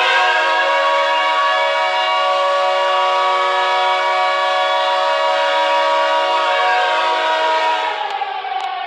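Hockey arena goal horn: a loud multi-note air-horn chord held steadily for about eight seconds, then dropping away as a siren winds down in pitch near the end.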